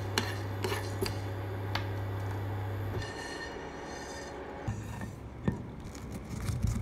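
Dry fenugreek seeds rattling and scraping in a nonstick frying pan as they are stirred with a spoon while roasting, over a steady low hum that stops about three seconds in. Near the end a stone pestle starts knocking in a granite mortar, crushing the roasted seeds.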